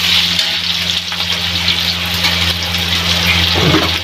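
Sliced onions sizzling in hot oil in an aluminium kadhai as they are browned for a tadka, stirred with a metal slotted spoon. There is a steady low hum under the sizzle.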